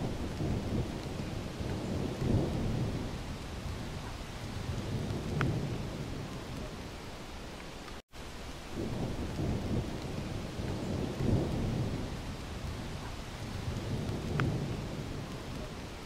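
Waterfall: a steady roar of falling water with low rumbling swells every few seconds. The sound cuts out for an instant about eight seconds in, then the same stretch repeats.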